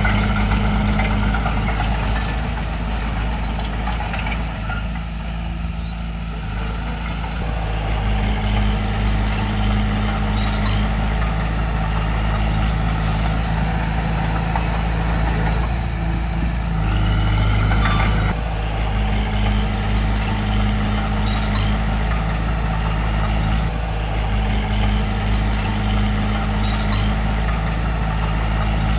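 Heavy diesel engine of construction machinery running steadily, its note shifting up and down a few times as the load changes, with a few brief sharp clicks.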